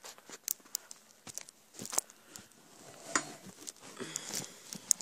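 Handling noise: clothing rustling and rubbing against the camera as it is moved and repositioned, with scattered light clicks and knocks.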